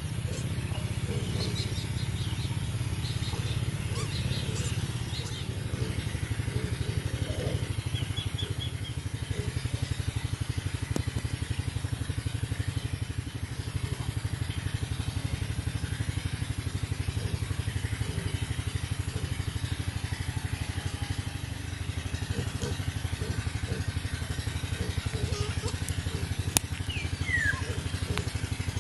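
A small engine running steadily with a low, even pulse. Birds chirp a few times over it, and a bird's falling whistle comes near the end.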